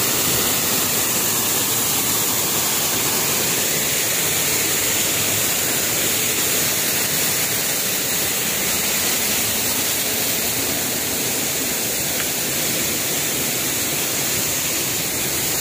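A small waterfall rushing steadily, an even hiss of falling water with no break.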